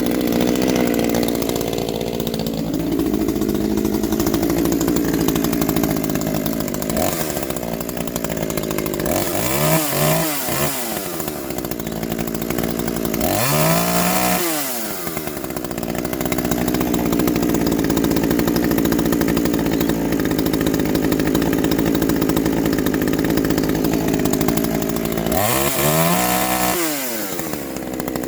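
Ported neo-tec NH841 two-stroke chainsaw running hard, mostly at a steady high pitch. Three times the engine speed sags and climbs back up again.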